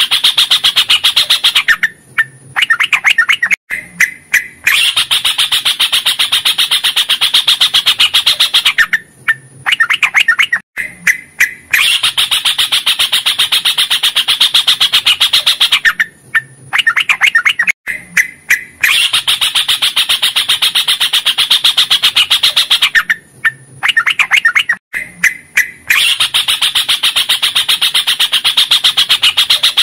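Yellow-vented bulbul (trucukan) singing: long runs of very rapid chattering notes, several seconds each. About every seven seconds a run breaks off into a short group of separate chirps before the next one starts.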